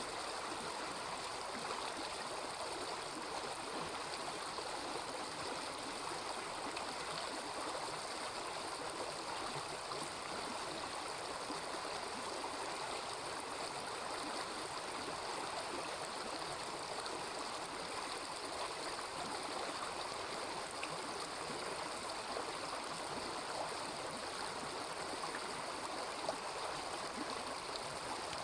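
Small river babbling steadily over stones, an even rushing and gurgling of water. There is one brief click near the end.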